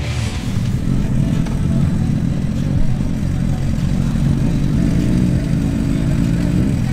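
Suzuki GSX-R1000 and Suzuki Hayabusa sport bikes running their inline-four engines at low revs with small rises in pitch as they roll slowly up to the drag strip start line.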